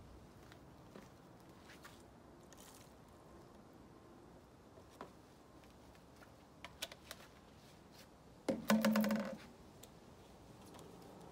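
Light clicks and taps of a plastic tub and a steel wool pad being handled on a wooden tabletop, then, about eight and a half seconds in, a brief buzzing rattle lasting under a second.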